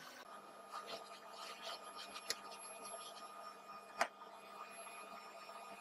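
Vacuum hose sucking sawdust off a freshly routed wooden board: a steady, low-level motor hum with scratchy rubbing as the nozzle drags over the wood, a small click a little after two seconds in and a sharp knock at about four seconds.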